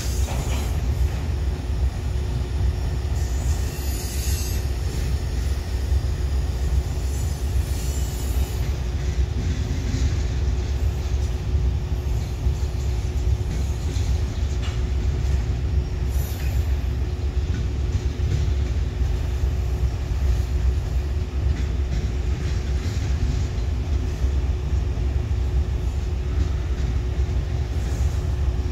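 A train's cars rolling by on the rails: a steady, heavy low rumble with a constant hum, and a few brief high-pitched wheel sounds along the way.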